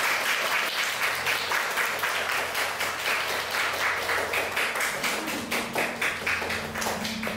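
Audience applauding with steady, dense clapping that eases slightly near the end.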